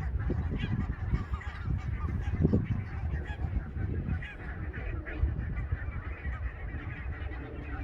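Birds calling, many short calls overlapping, over a steady low rumble.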